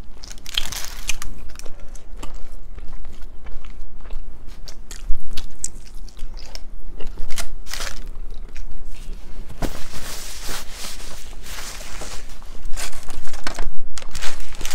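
Close-miked eating of a burger and fries: bites and chewing with many short, sharp crunches.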